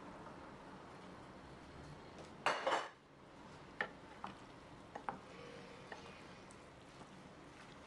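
Wooden spoon stirring chopped tomatoes and peppers in a stainless steel pot. There is one loud clatter lasting about half a second, about two and a half seconds in, then several light knocks against the pot.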